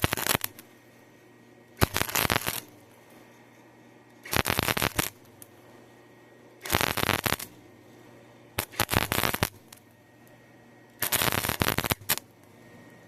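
Arc welder crackling in six short bursts, each half a second to a second long, as short stitch welds are laid on steel pipe.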